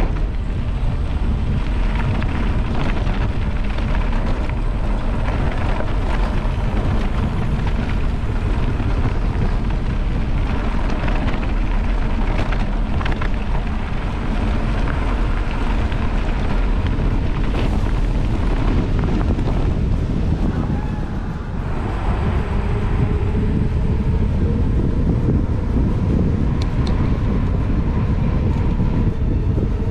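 Wind rushing over an action camera's microphone, with the rumble of mountain-bike tyres on a dirt track, steady throughout apart from a brief dip about two-thirds of the way through.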